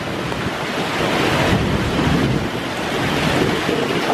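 Steady rush of water along a log flume ride's channel around the moving log boat, with wind buffeting the microphone.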